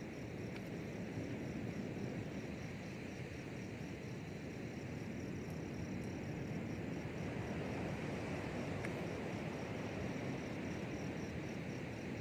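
Insects, likely crickets, chirping in a steady pulsing rhythm, a few pulses a second, over a steady low rushing noise.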